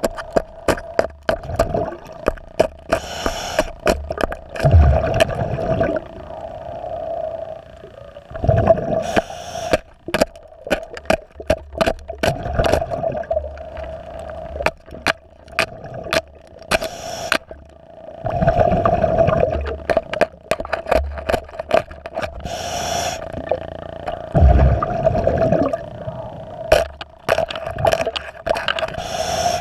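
Underwater, a hand scraper ticks and clicks against a barnacle-crusted boat hull as the marine growth is knocked off. Every few seconds a scuba regulator breath swells in, and the exhale bubbles rumble out. A steady hum runs underneath.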